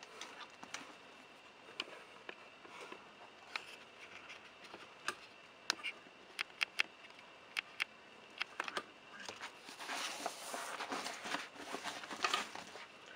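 Lowepro Classified 200 AW camera bag being handled close to the microphone: woven fabric rustling, with scattered small clicks and taps. The rustling thickens a little after the middle as the bag is turned over.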